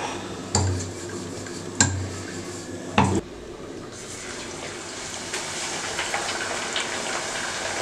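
Wooden rolling pin knocking three times, about a second apart, against a marble rolling board, then a bhatura slid into hot oil and sizzling steadily as it starts to fry.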